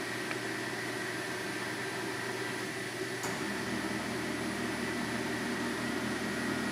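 Manford 200VS milling machine running with a steady mechanical hum and a thin high whine. About three seconds in, a second lower hum joins as another drive on the machine starts.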